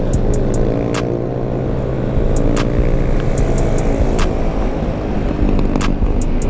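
Small automatic scooter's engine running under way, with steady road and wind rumble. A backing beat runs over it: a sharp snare-like hit about every second and a half, with lighter ticks between.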